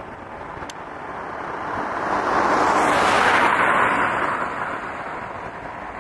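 A vehicle passing by: a rushing noise that builds for about two seconds, peaks a little past halfway, then fades away.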